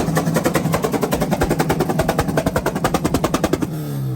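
A car engine held on a 2-step launch limiter, its exhaust firing a rapid, even string of loud pops, about nine a second, like a machine gun. Near the end the popping cuts off and the revs fall away.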